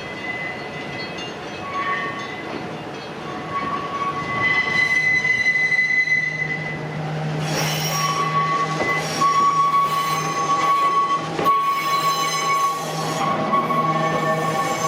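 Train wheels squealing against the rails: shrill held tones that come and go, growing louder from about four seconds in, with a single sharp clack about three-quarters of the way through.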